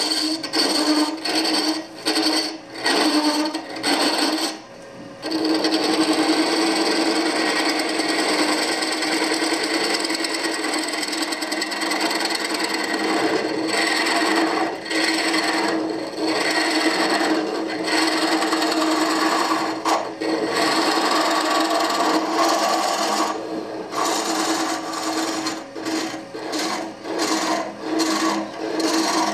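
Turning tool cutting into the end grain of a spinning wood blank on a Oneway lathe, a steady scraping hiss over a low hum. It comes in short passes for the first few seconds, runs unbroken for several seconds, then breaks into short passes again for the rest.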